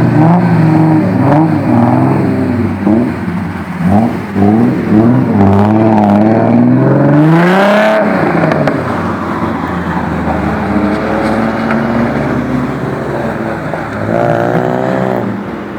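Naturally aspirated Nissan RB26 straight-six with six individual throttle bodies, in a 240Z, revving up and down several times, then one long climb that cuts back about eight seconds in. It then runs lower and steadier, with another short rev near the end.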